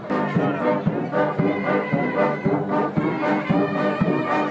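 Brass band music, horns playing a melody over a steady drum beat of about two strokes a second.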